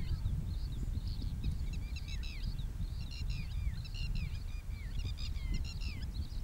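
Birds chirping and chattering, many short calls overlapping one another, over a steady low background noise.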